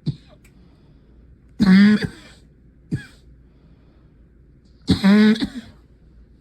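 A person sick with a cold coughing: two loud coughs about three seconds apart, each lasting about half a second, with a few short sharp sounds between.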